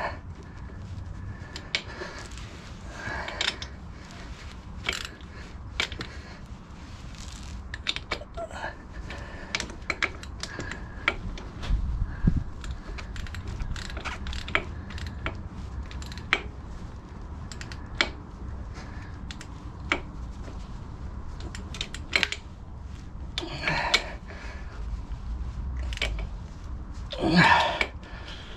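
Socket ratchet clicking in irregular runs while bolts are done up on a motorcycle's rear wheel, with scattered metal clinks of the tool against the hub and a louder knock near the end.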